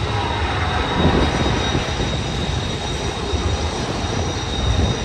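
BNSF freight train rolling slowly with its brakes applied: a thin, steady high-pitched brake squeal over the low rumble of the cars on the rails.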